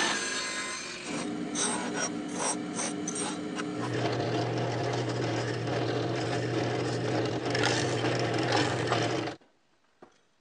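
Woodworking power tools cutting wood: a table saw ripping a thin wooden strip, then a drill press boring into a wooden block with its motor humming steadily. The noise starts sharply and stops abruptly about nine seconds in.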